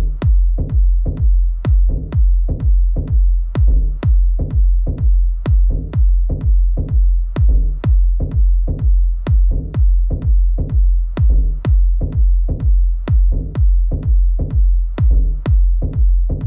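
Electronic techno track, stripped back to a steady four-on-the-floor drum-machine kick and deep bass at about two beats a second, with light high ticks between the beats.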